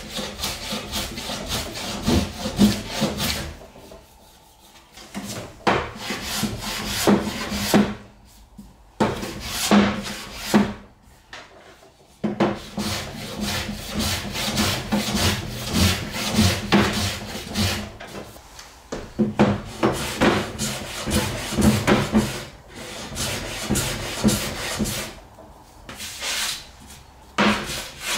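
Small hand plane shaving the edges of a wooden cabinet carcass: runs of quick push strokes of steel cutting wood, broken by short pauses every few seconds.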